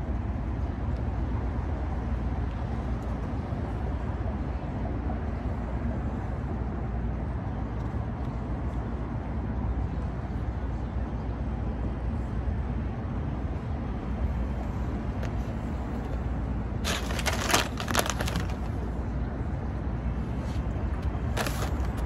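Steady low rumble of road traffic, with a few short sharp crackles a little before the end and once more near the end.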